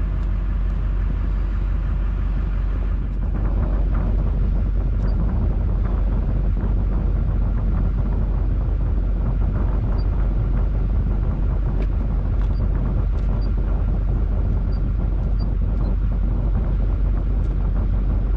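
Vehicle engine running steadily with a low rumble, with scattered faint clicks; it gets a little louder about three seconds in.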